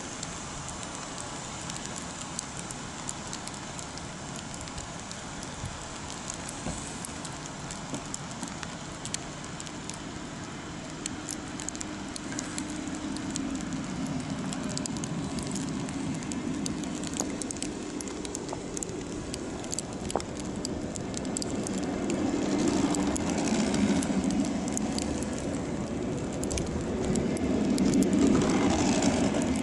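Intercity 2 double-deck push-pull train rolling slowly past a platform. There are faint clicks of wheels over rail joints and a low rumble that grows louder toward the end, over a steady hiss and crackle.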